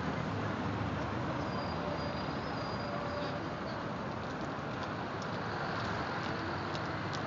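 Steady city traffic noise, a low even rumble with a few faint ticks.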